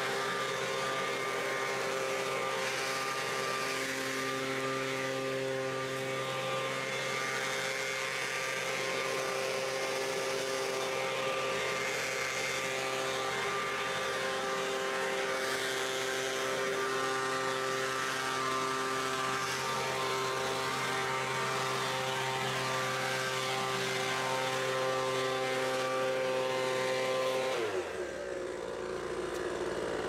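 Poulan Pro 200 MPH handheld leaf blower's two-stroke engine running steadily while blowing, now running well with its loose cylinder head re-tightened and a fresh spark plug. Near the end it is shut off and winds down with a falling pitch.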